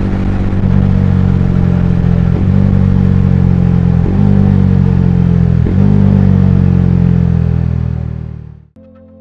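Bajaj Dominar 400's single-cylinder engine running steadily under way, its note dipping briefly about every second and a half. It cuts off abruptly near the end and soft music takes over.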